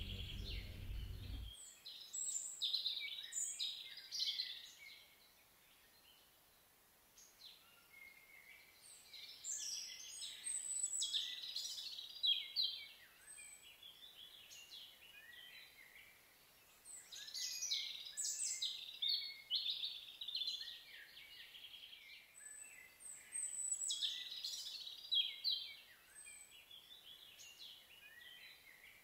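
Songbirds singing in short runs of quick chirps and whistles, coming and going every few seconds. A low rumble is heard at the start and cuts off about a second and a half in.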